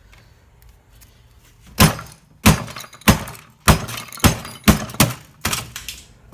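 A quick run of about ten hard thuds, one every half second or so, starting about two seconds in; each knock is sharp with a short ring after it.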